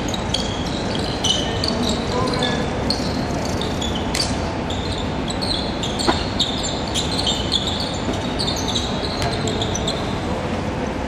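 Basketball shoes squeaking on a hardwood court again and again as players run and change direction, with a few sharp knocks, over a steady hall noise.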